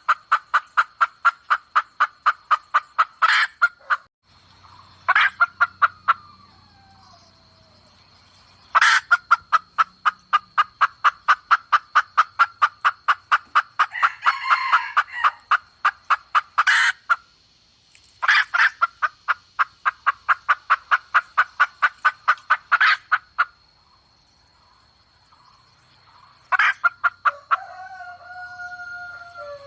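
Red junglefowl hen clucking in long rapid runs, about six clucks a second with short pauses between runs and a louder note now and then; it is a bait hen's call used to lure wild cocks.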